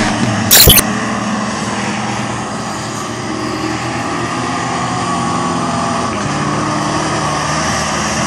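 The stock 5.7-litre (350 cubic inch) TBI V8 of a 1987 GMC High Sierra pickup running under load as the truck drives through loose sand, its note shifting about six seconds in. A brief loud burst of noise comes about half a second in.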